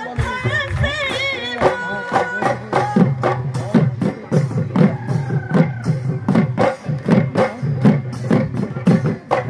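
Live Assamese Bihu folk music: dhol drums beating a quick, steady rhythm, with a wavering melodic line over them in the first couple of seconds.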